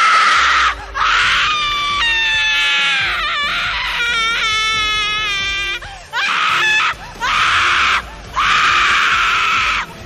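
Horror sound-effect screaming: a high-pitched human voice shrieking loudly in several long screams with short breaks between them, the middle one wavering and trembling in pitch.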